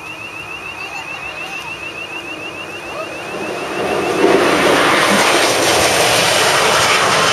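A rapid, even, high-pitched chirping, about five pulses a second, which stops about four seconds in as a loud rushing noise rises and then holds steady.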